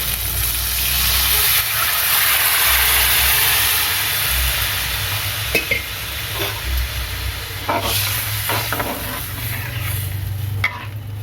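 Tamarind extract hitting the hot oil and sautéed onions and tomatoes in the pan, sizzling with a loud hiss that eases off after about five seconds. Then a spoon clicks and scrapes against the pan as the kuzhambu is stirred.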